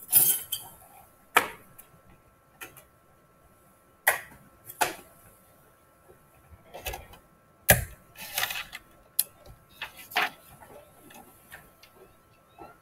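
Scattered sharp clicks and knocks, about a dozen at uneven intervals, like small hard objects being handled on a desk, over a faint steady high-pitched tone.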